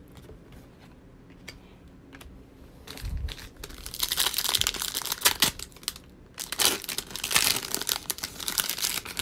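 Foil wrapper of a 2020 Select Football trading card pack crinkling and tearing as it is ripped open by hand, then rustling as the cards are slid out. A soft thump comes about three seconds in, before the crinkling starts.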